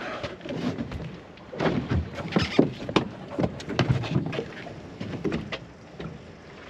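Irregular knocks and clunks on a fishing boat's bow deck as an angler works a rod, the busiest and loudest stretch about two to four seconds in.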